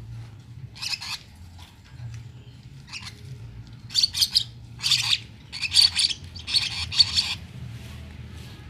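Lovebirds calling: a run of short, harsh, high chirping screeches, one about a second in, then more in quick succession from about four seconds in. A steady low hum runs underneath.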